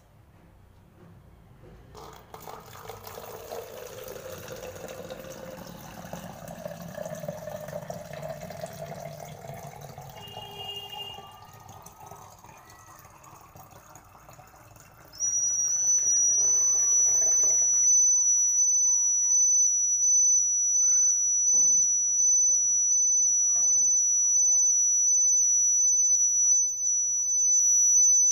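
Water pouring into a plastic bottle, the filling sound slowly rising in pitch. About fifteen seconds in, a buzzer sounds a loud, steady, high-pitched alarm tone that keeps going: the water-level indicator signalling that the water has reached the top level. The pouring stops a few seconds after the alarm starts.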